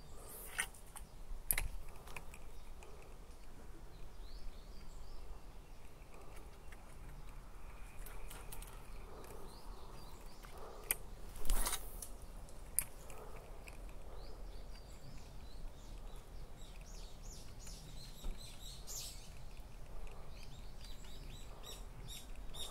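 Small birds chirping and twittering, busiest near the end. A few sharp clicks cut through, the loudest a little under halfway through.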